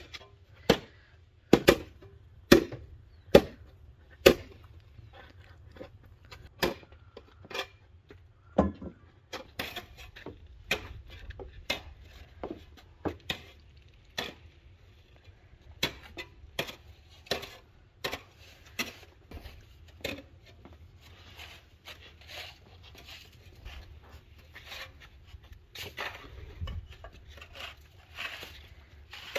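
Irregular sharp knocks and taps, about one or two a second, loudest in the first few seconds; later softer thumps and slaps of hands kneading dough on a wooden board.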